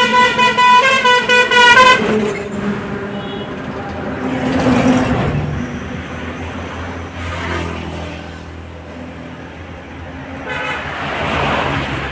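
A vehicle horn honks in a quick run of pulsing toots during the first two seconds as a tanker truck passes, then road vehicles go by in three swooshes, about four, seven and eleven seconds in, with a low engine drone under the later ones.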